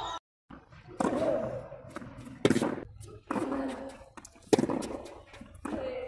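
Tennis ball struck back and forth with rackets in a rally on a clay court: a series of sharp hits about a second apart, the two loudest about two seconds apart.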